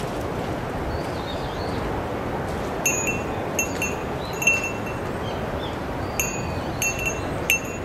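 A small metal bell ringing in short, irregularly spaced strikes, about eight of them from a few seconds in, over a steady windy hiss.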